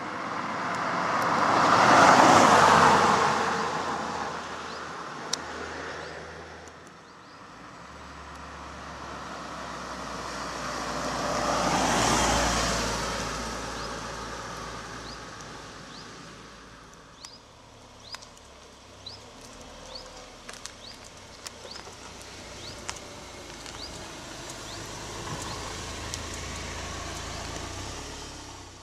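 Two cars driving past about ten seconds apart, each swelling up and fading away, followed by quieter background with a scatter of short sharp clicks.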